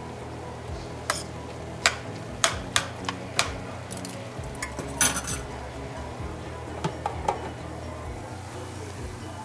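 A metal spoon knocking and clinking against a stainless steel frying pan while stirring cabbage and vegetables: a string of sharp, separate clinks about half a second to a second apart, with a tighter cluster about halfway through and a few more near the end.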